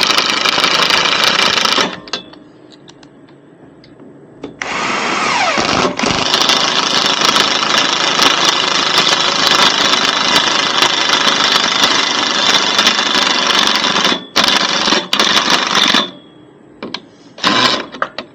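Power drill running in long bursts, cutting in and out abruptly: a run of about two seconds, a pause, then a long run of about ten seconds with a falling whine as it starts, and short bursts near the end.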